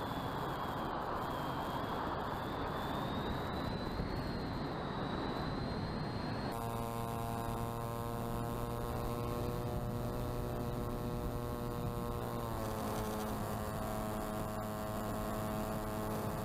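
Onboard audio of an electric RC plane in flight. First a rush of wind with a thin wavering whine from the motor and propeller, then, from about six seconds in, a steady buzzing electric-motor hum with many overtones. The hum drops slightly in pitch about twelve seconds in, as the throttle is eased.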